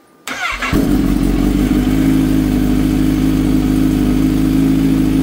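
Kawasaki Z H2 SE's supercharged inline-four engine started on the electric starter: a brief whir of cranking, then the engine catches under a second in and settles straight into a steady idle.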